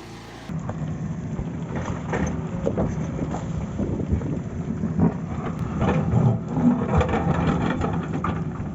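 A heavy machine's engine running steadily, with scattered knocks and clanks over it.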